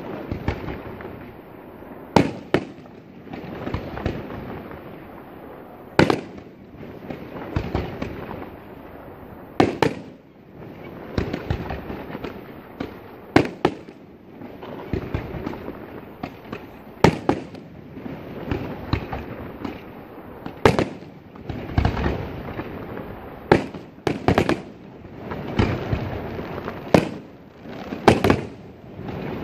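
Fireworks display: aerial shells bursting in sharp bangs every two to four seconds, sometimes two in quick succession, over a continuous din from the rest of the show between them.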